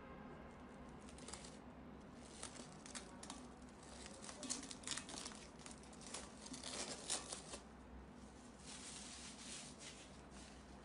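Clear plastic wrap stretched over a tub of clear glitter slime crinkling and crackling as it is pressed. The crackles come in irregular clusters, thickest between about two and seven seconds in and again near the end.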